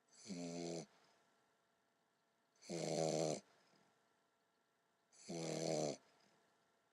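English Bulldog puppy snoring: three snores in even rhythm, each under a second long and about two and a half seconds apart.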